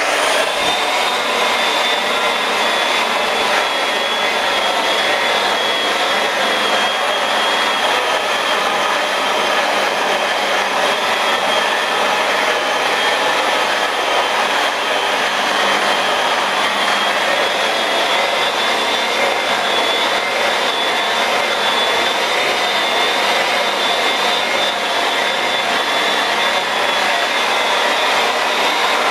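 Electric rotary polisher with a foam pad starting up and running at a steady speed, buffing cutting compound into a car's paintwork to polish out fine scratches around a repaired spot. A steady motor whine with a high tone running through it.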